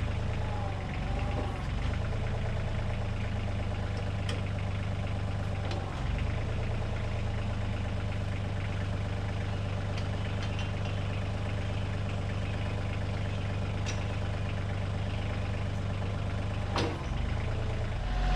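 Kioti CK2610 compact tractor's three-cylinder diesel engine running steadily, with a few sharp knocks, the loudest near the end.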